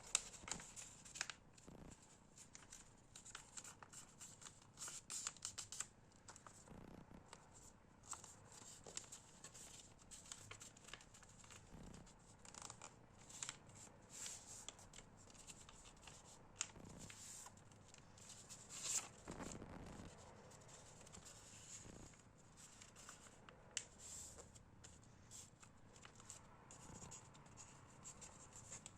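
Faint paper rustling and crinkling, with short scrapes and clicks, as a sheet is handled and folded by hand; the loudest rustle comes about two-thirds of the way through.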